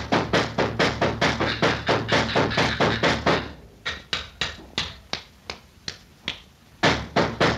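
Cartoon revolver gunfire: a fast run of sharp shots, about six a second, for the first three seconds or so. Slower, scattered shots follow, then another fast run near the end.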